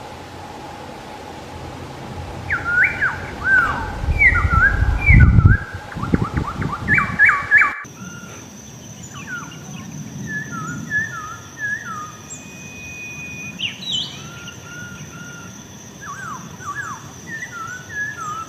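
Black-throated laughingthrush singing: a loud run of clear, gliding whistled notes in the first half, broken off by a sudden cut, then a quieter series of similar whistles.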